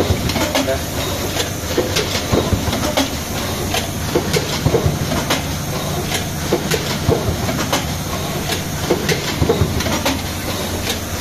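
Pneumatic card hot stamping machine running: frequent sharp, irregular clicks and clacks from its moving cylinders and card carriers over a steady mechanical hum.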